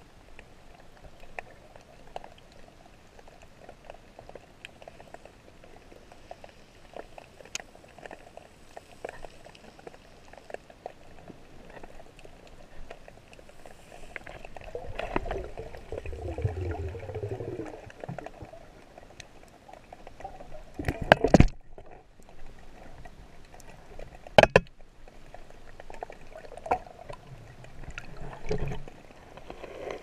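Underwater sound through a diver's camera housing: water rushing and gurgling past the housing, with scattered small clicks and crackles. The gurgling swells a little after halfway, and two loud knocks follow a few seconds later, the second one short and sharp.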